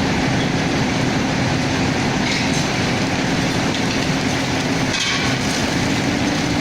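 Excavator's diesel engine running steadily with a constant low drone, and two brief harsh, higher-pitched noises from the demolition grab's work about two and five seconds in.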